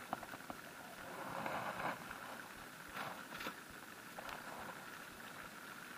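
Faint steady hiss with a few small clicks and short rustles as a freshly caught small fish is handled and unhooked in a wooden boat.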